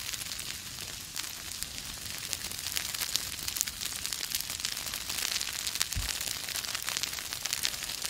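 Grass and brush fire burning: a steady hiss thick with fast, irregular crackles and pops.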